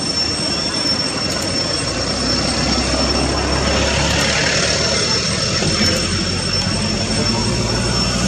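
Steady outdoor background hiss with a constant high-pitched tone, and a low rumble that swells for a few seconds in the middle.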